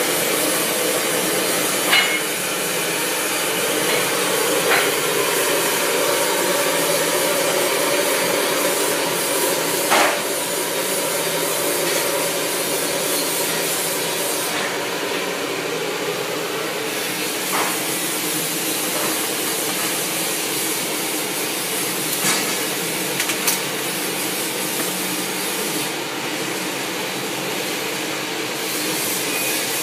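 Gas burner flame hissing steadily. A few sharp clicks and knocks sound over it at scattered moments.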